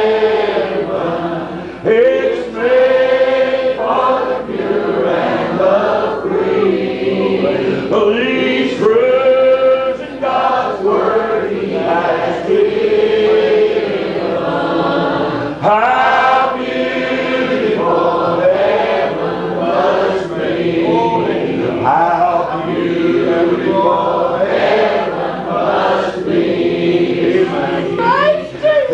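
Church congregation singing together, many voices overlapping on long held notes.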